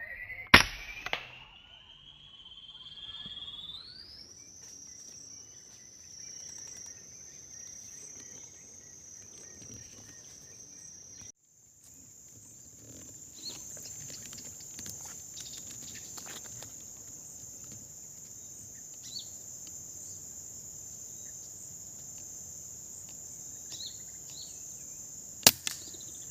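Two sharp air rifle shots, one about half a second in and one near the end, over a steady high-pitched insect drone that rises in pitch during the first few seconds.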